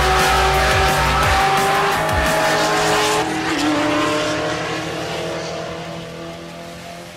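Two stick-shift drag cars accelerating away down the strip, their engines rising in pitch through the gears, then fading into the distance. Background music is mixed underneath.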